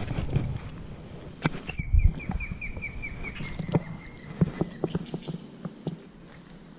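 Osprey calling: a quick series of high, whistled chirps, about five a second, lasting around a second and a half. Under it are low thumps and knocks from wading in the river, the loudest about two seconds in.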